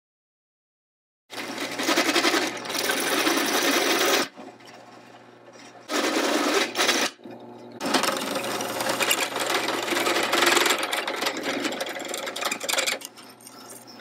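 Drill press with a step drill bit cutting holes in thin stainless steel plate: loud spells of the bit cutting, a few seconds each, broken by short quieter pauses, over a steady motor hum. It starts about a second in.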